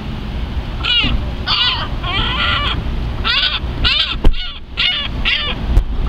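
Gulls calling, a run of about eight short, high calls in quick succession over a low rumble of wind on the microphone. Two sharp clicks come near the end.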